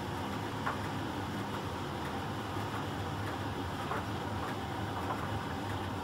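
Miele Professional PT 7186 XL commercial tumble dryer running in its heated drying stage: the drum motor and heating blower hum and rush steadily. Light knocks come now and then as the rags tumble in the drum.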